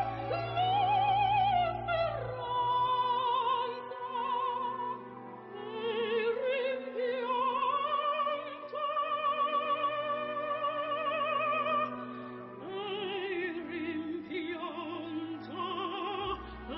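Operatic singing with a strong vibrato, long held notes sliding from one pitch to the next.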